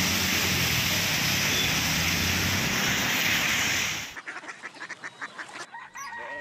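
Traffic running through a flooded road: a steady rush of tyres splashing and spraying water. About four seconds in it cuts off suddenly, giving way to quieter rustling and then a short held pitched tone.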